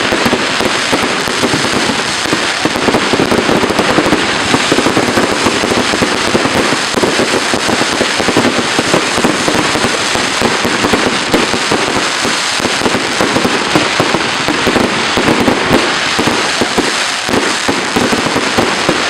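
Fireworks crackling and popping in a dense, continuous barrage of rapid bangs.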